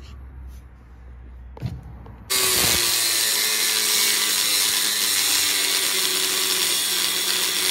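About two seconds in, an angle grinder with a thin cut-off wheel starts cutting steel plate, which is loud and steady, with a constant whine through the grinding noise. Before that it is fairly quiet, with a small knock.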